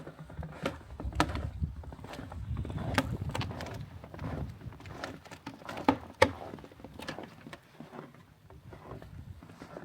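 Footsteps crunching in snow, at an uneven pace, over a low rumble that fades away about halfway through.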